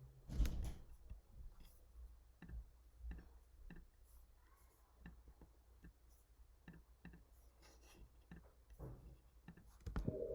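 Faint, irregular clicks and taps of a computer mouse and keyboard, with one louder knock about half a second in and a quick run of clicks near the end.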